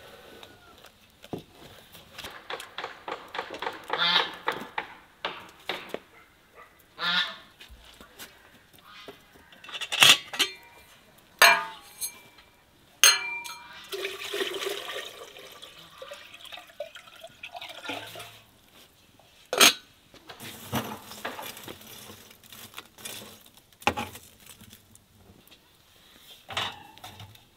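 Outdoor cooking sounds. A spatula scrapes batter across a metal baking pan in quick strokes, then water is poured from a metal jug into a kettle about halfway through, and near the end a pan is set down on a grill. Loud sharp knocks are scattered through the middle.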